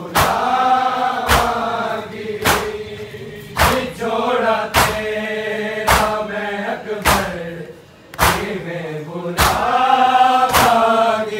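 Men chanting a mourning elegy (noha) together, with a sharp slap of chest-beating (matam) falling about once a second.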